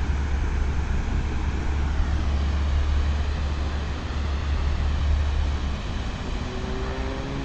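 Water pouring over a small waterfall into a river pool, a steady rushing hiss. Under it a deep rumble stops about six seconds in, and a faint rising hum comes in near the end.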